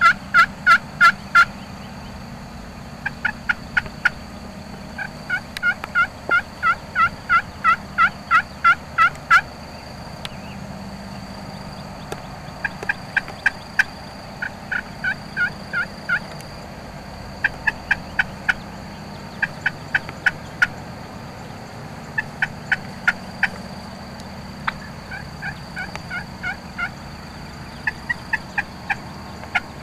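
Wild turkey yelping: repeated runs of short, evenly spaced yelps, about three a second, each run of a handful to over a dozen notes, with short pauses between runs.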